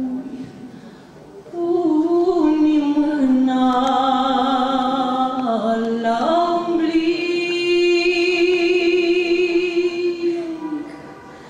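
A young woman's solo voice singing a Romanian doina unaccompanied, with long held notes and ornamented turns. After a breath pause of about a second near the start, she ends on a long held note that fades out near the end.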